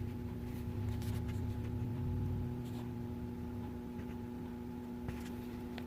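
Steady engine hum and low rumble inside a four-wheel-drive truck's cabin, with a few faint clicks.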